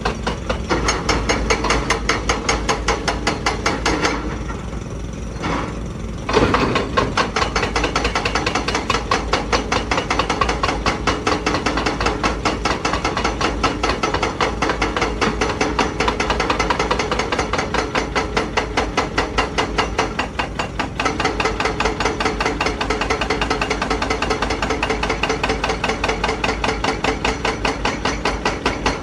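Hydraulic breaker on a Zoomlion ZE335E excavator hammering rock: rapid, even blows, many a second, that pause for about two seconds about four seconds in and then resume. The excavator's diesel engine runs steadily underneath.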